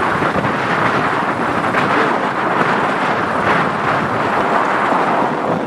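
Strong headwind buffeting the microphone: a loud, steady rushing roar with no break.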